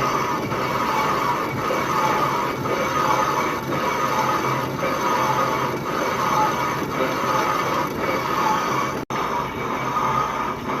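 Metal-boring machine cutting metal: a steady grinding whine that pulses about once a second. It drops out for an instant near the end.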